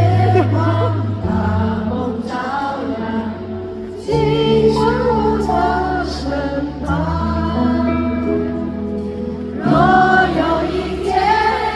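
Live Mandarin pop ballad: band accompaniment with many voices singing the melody together, an audience singing along.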